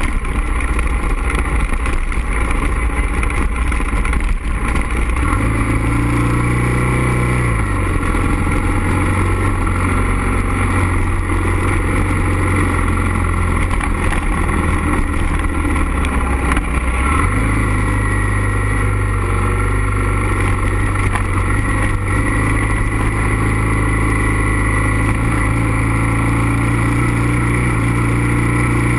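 Suzuki DR650's single-cylinder engine running steadily as the motorcycle rides along a gravel road. The engine note rises about five seconds in, drops back around seven and a half seconds, and rises again around seventeen seconds in.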